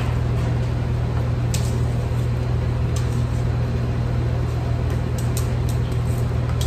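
A steady low hum, with a few faint clicks from a silicone spatula stirring melted chocolate in a stainless saucepan.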